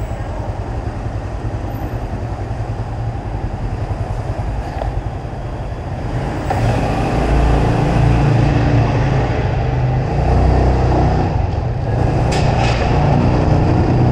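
Motor vehicle being driven, its engine note and the rush of road noise growing louder from about six seconds in as it picks up speed.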